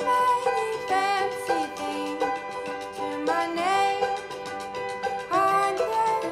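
Background music: a melody of held notes that slide up into pitch, over a steady beat.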